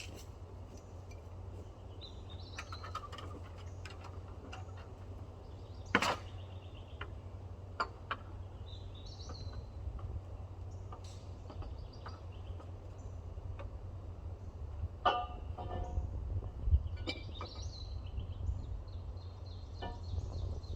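Scattered metal clanks and knocks from a long steel pipe and wrench being worked against an excavator's hydraulic hose fitting. There is a sharp knock about six seconds in and a ringing clank a little after halfway, over a steady low rumble, with birds chirping now and then.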